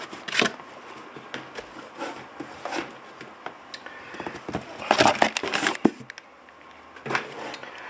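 Cardboard box, foam and plastic packing being handled: scattered rustles and scrapes, loudest about five seconds in.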